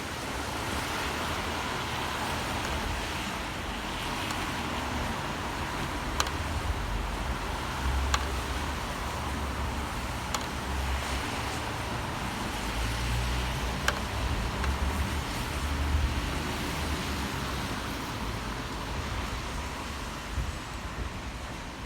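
City traffic on rain-wet streets: a steady hiss of tyres and rain with a low rumble of passing vehicles that swells and fades, and a few sharp ticks now and then.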